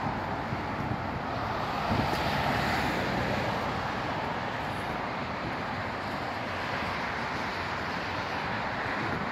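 Steady road-traffic noise from passing cars, with light wind on the microphone.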